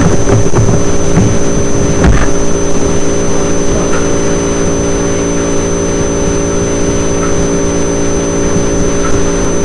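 A loud, steady electrical hum with a thin high whine above it, with a few sharp clicks in the first two seconds.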